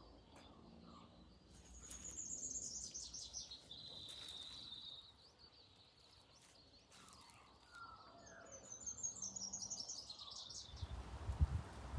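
Wild birds singing: two phrases of quick, high, descending notes, about two seconds in and again around eight seconds, with softer chirps between. Near the end a low rumbling noise sets in.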